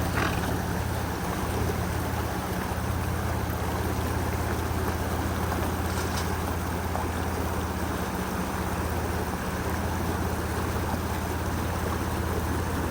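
Vehicle engine running steadily with a constant low hum, under a steady rush of water.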